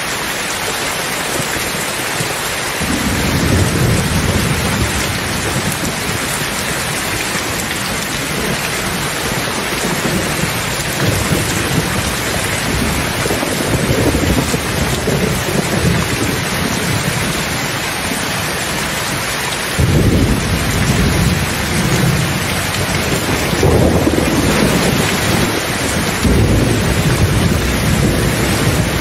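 Steady heavy rain with rolling thunder. A low rumble builds about three seconds in and swells and fades for a while, then a second peal breaks in sharply about two-thirds of the way through and rumbles on.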